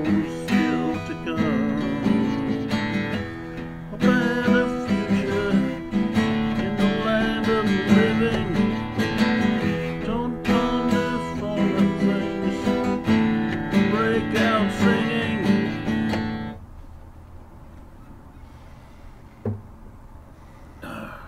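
Acoustic guitar strummed while a man sings over it. The playing stops suddenly about three-quarters of the way through, leaving quiet room tone with a single knock a few seconds later.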